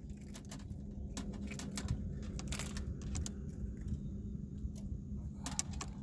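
Scattered light clicks and rattles of a fishing lure and hook being handled while a small fish is worked off the hook, over a steady low hum.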